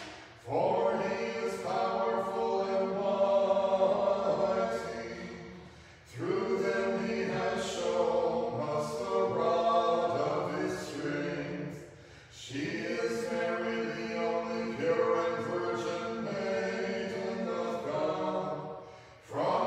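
Choir singing Orthodox Vespers chant a cappella, in phrases of about six seconds with short breaks between them.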